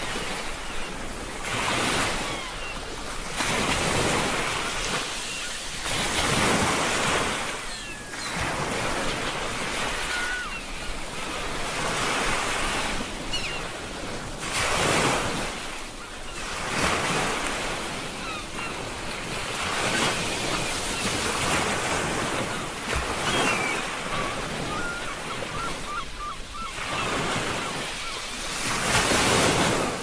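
Ocean waves breaking and washing on a shore, the surf noise swelling and easing every few seconds.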